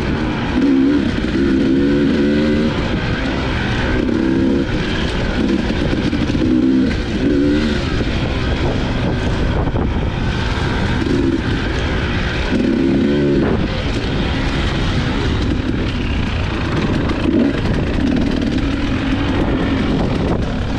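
Dirt bike engine revving up and down again and again as it is ridden along a trail, under a constant rush of wind and ground noise.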